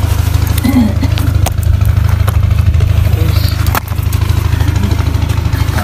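An engine idling steadily close by, a low, even chugging drone with a brief dip a little past the middle.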